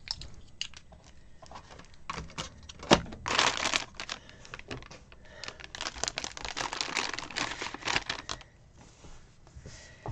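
Soft plastic wipes packet crinkling as it is handled and a wipe is pulled out, in two spells of rustling. There are a few sharp clicks between them, the loudest about three seconds in.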